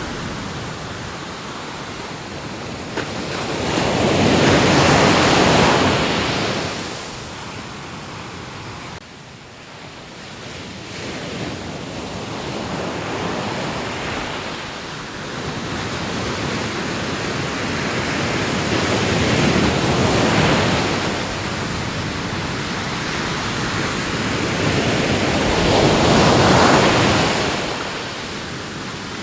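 Ocean waves breaking and washing ashore as a continuous rushing hiss, swelling up with each wave: surges about five seconds in, around twenty seconds and again near the end.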